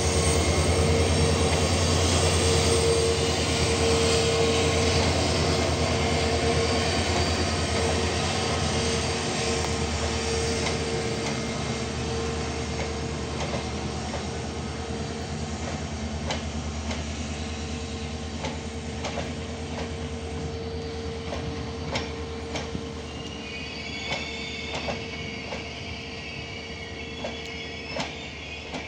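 Diesel-hauled express train rolling by on the rails: a steady rumble of wheels and locomotive engine drone that fades slowly, with sharp wheel clicks over rail joints in the second half and a thin high wheel squeal near the end.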